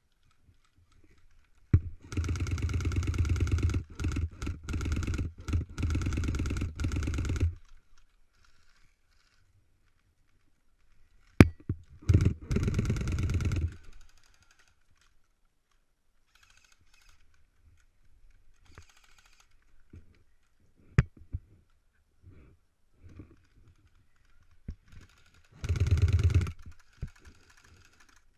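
Airsoft electric rifle (AEG) firing on full auto: a rapid buzzing rattle of the motor and gearbox cycling shot after shot. It fires a long burst of several seconds with short breaks, then a shorter burst, then a brief one near the end, with faint clicks and handling noise in between.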